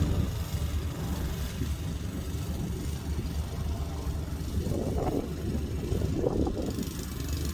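Lawn mower engine running with a steady low drone, with uneven louder bursts breaking in from about halfway through.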